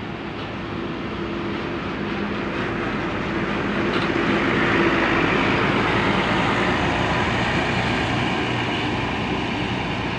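An intercity bus passing close by: engine and tyre noise building to a peak about halfway through, then fading away.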